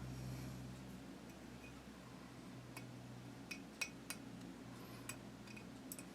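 Small metal parts of a rifle trigger group being handled while a trigger spring is worked into place, giving faint, scattered light metallic clicks and clinks, about half a dozen in the second half.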